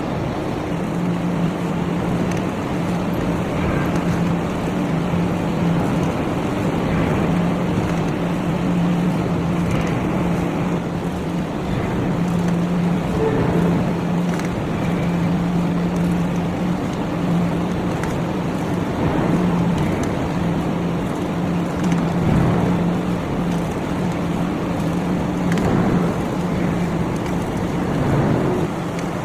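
Heavy forging machinery running in a forge shop: a steady mechanical noise with a low motor hum that drops out and returns every few seconds.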